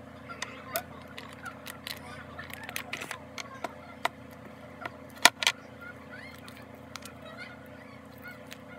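Homemade slime being squeezed, stretched and pressed by hand, giving a string of short clicks and pops, the two loudest a little past five seconds in.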